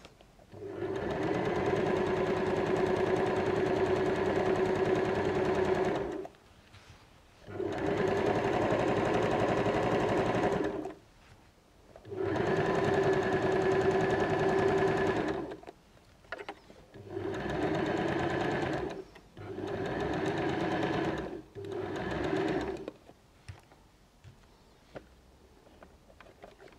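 Electric domestic sewing machine stitching a seam through fabric, running at a steady fast rate in five spells of a few seconds each with short stops between them, then stopping for a few seconds near the end.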